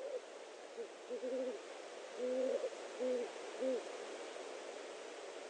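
An owl hooting: a series of about six short, low hoots, one of them wavering, over a steady hiss.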